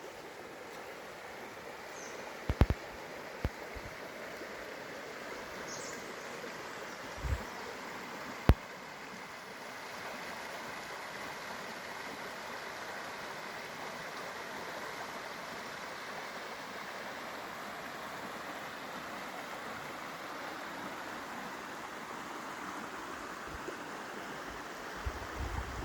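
Forest river water flowing and rushing steadily over its bed. A few sharp clicks and one short low thump come in the first several seconds.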